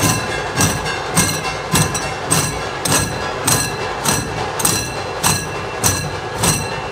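A procession troupe playing jhanj, pairs of metal hand cymbals clashed together on a steady beat a little under twice a second. Each clash lands with a deep drum beat, and the cymbals keep ringing between strikes.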